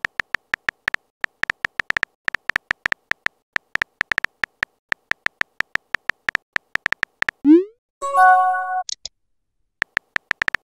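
Texting-app keyboard click sound effects tapping out a message, several clicks a second. About seven seconds in, a short rising swoosh marks the message being sent, followed by a brief synthesized chime; the clicks start again near the end.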